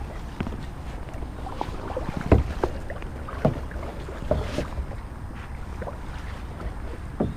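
Kayak on the move: irregular paddle knocks against the hull, the loudest a little over two seconds in, over a steady low rumble of wind on the microphone.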